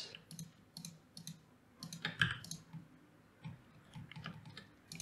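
Faint, irregular clicks of a computer mouse and keyboard, spaced unevenly, as mesh edits are made in a 3D modelling program.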